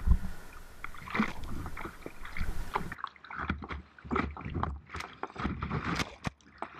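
Kayak running whitewater rapids: irregular splashes of paddle strokes and waves hitting the hull and the camera over the rush of fast water. A steady high hiss cuts off abruptly about three seconds in.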